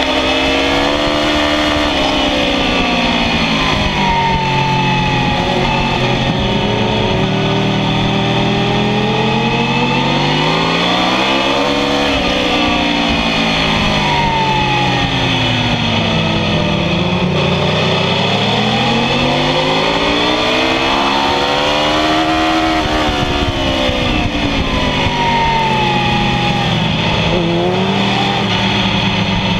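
Sport bike engine at full track pace, heard from the bike itself: its pitch climbs as it accelerates out of each corner and falls back as it slows for the next, several times over, with a steady rush of wind over it.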